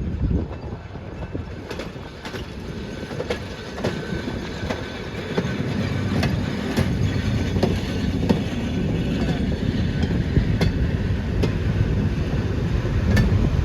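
Railway cars rolling along the track: a steady low rumble with irregular clicks and clacks of the wheels over the rails, growing louder after about five seconds.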